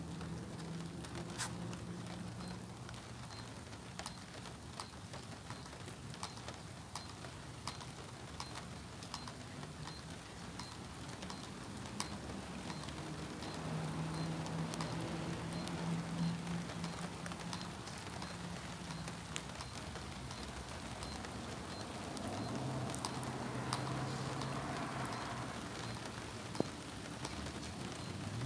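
Rain falling steadily on pavement, with many small drips and taps. A low hum comes up twice, around the middle and again near the end.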